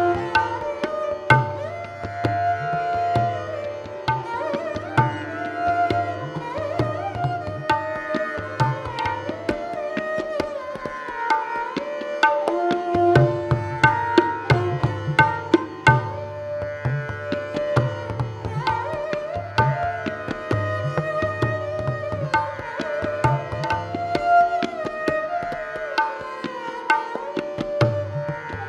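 Taus, a bowed, fretted string instrument with a peacock-shaped body, playing a sliding, ornamented melody of Indian classical music over tabla accompaniment. The tabla pauses briefly a few times, leaving the taus alone.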